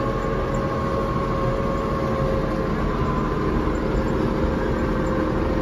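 Ford farm tractor's engine running steadily, heard from inside the cab, with a faint steady whine over the engine note.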